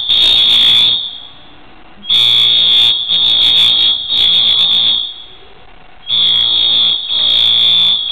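Building fire alarm sounding: a loud, high-pitched electronic tone beeping in groups of three with about a second's pause between groups, the temporal-three evacuation pattern. It is described as excruciating.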